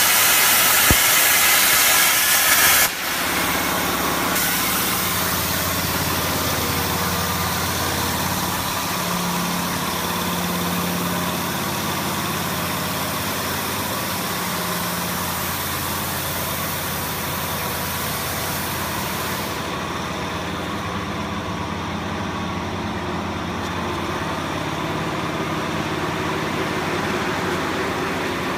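CNC plasma cutting table: a loud plasma-arc hiss stops suddenly about three seconds in. A steady low machine hum follows.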